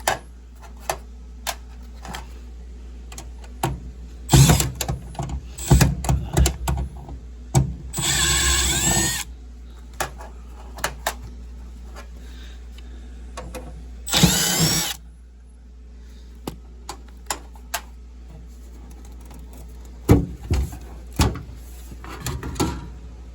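Cordless power drill/driver running in short bursts of about a second each with a rising whine, about eight seconds in and again about fourteen seconds in. Scattered clicks and knocks run between them over a steady low hum.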